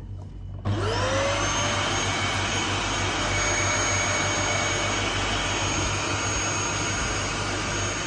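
Canister vacuum cleaner switched on less than a second in, its motor spinning up with a quickly rising whine, then running steadily with a loud even rush of air and a high steady whine.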